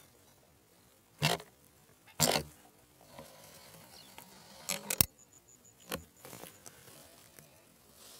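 Handling noise on a scoped air rifle: a few short scuffs and knocks, and one sharp click about five seconds in that is the loudest sound.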